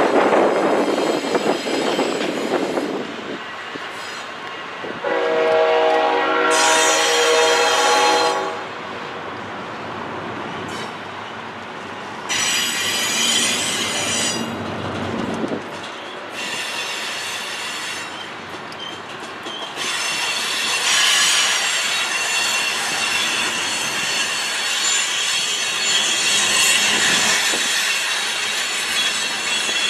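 Freight train passing: a locomotive horn sounds one long blast about five seconds in, and the wheels squeal in high-pitched stretches through the second half, over the steady rumble of the train.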